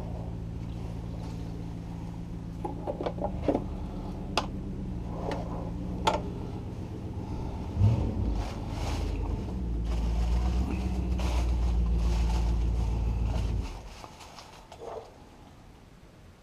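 A motor or engine running steadily with a low hum, which cuts off suddenly about 14 seconds in, with a few sharp knocks and clatter from things being handled or stepped on.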